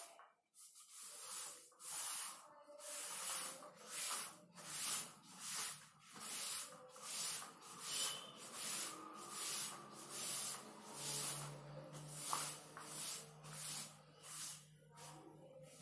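Cloth rubbed back and forth across a chalkboard, erasing chalk writing: a rhythmic hissing rub of roughly one to two strokes a second.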